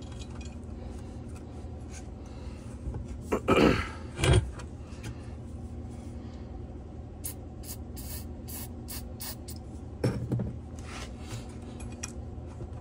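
Hand work on the rubber anti-vibration mounts of a Stihl cut-off saw. There is a loud scrape a few seconds in as a pick works the mount. Past halfway come several short squirts from a spray can, then a knock, over a steady low shop hum.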